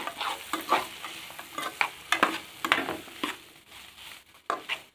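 Metal spoon scraping and clinking against an aluminium pan as cut okra is stirred and fried, in irregular strokes a few times a second over a faint sizzle. The strokes thin out near the end.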